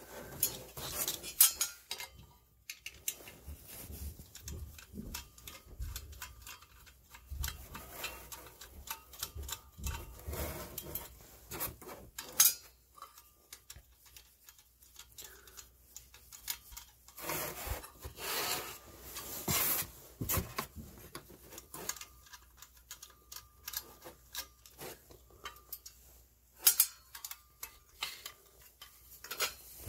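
Hand tools working on a furnace draft inducer motor's sheet-metal parts: irregular metal clicks, clinks and scraping as a screwdriver backs screws out of the mounting plate. There are a few sharper knocks and a longer scraping stretch a little past halfway.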